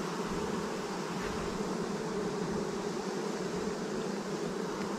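A colony of honeybees buzzing in a steady, dense hum around their opened swarm trap.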